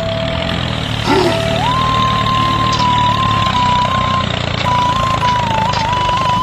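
Small engine of a home-made mini tractor running steadily, with a single high melodic line of background music holding notes over it, stepping up in pitch about a second and a half in.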